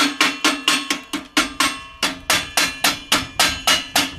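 Hammer blows on the steel frame of a concrete mixer, knocking off hardened mortar: rapid, evenly spaced strikes about four a second, each with a short metallic ring, with a brief pause a little under two seconds in.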